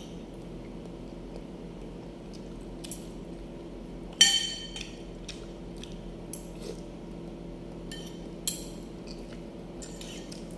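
Metal fork and spoon clinking against a plate while eating pasta: a few faint taps, and two sharp clinks that ring briefly, the loudest about four seconds in and another about eight and a half seconds in. A low steady hum lies underneath.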